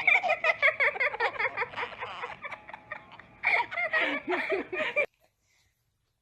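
A young child giggling and laughing in rapid, high bursts; the sound cuts off suddenly about five seconds in.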